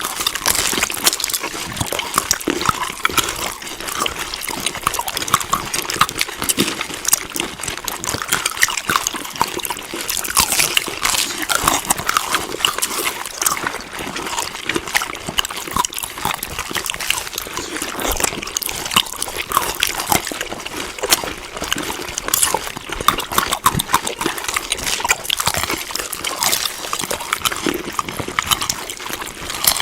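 Close-miked chewing of food: a continuous run of wet, crackly mouth clicks and smacks.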